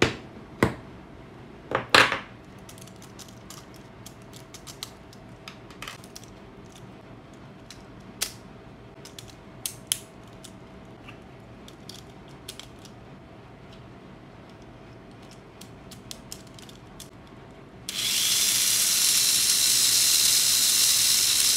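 Sharp clicks and taps of AA batteries being fitted into a Tamiya Mini 4WD chassis and the chassis being closed. About eighteen seconds in, the car is switched on and its small electric motor and homemade counter gear start suddenly and run with a loud, steady whir.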